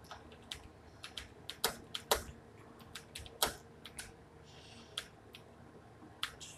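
Computer keyboard typing: irregular sharp keystroke clicks, about three a second, thinning out to a few scattered clicks in the last couple of seconds.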